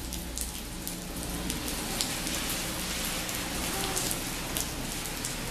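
Steady rain falling, with many sharp raindrop ticks at irregular intervals over an even hiss.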